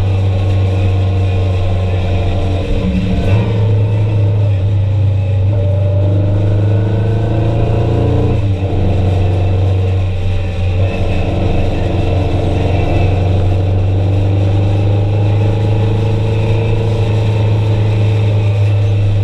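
Engine of the vehicle making the ride running steadily, heard from on board, its pitch shifting about three seconds in and again about eight and a half seconds in as it changes speed or gear.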